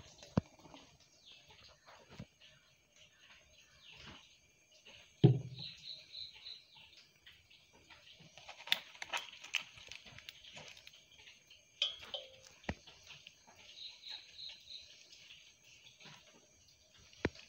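Rustling and crinkling of banana-leaf cups being handled and tied shut with string, with one thump about five seconds in. Short runs of rapid high chirps, four or five at a time, come three times in the background.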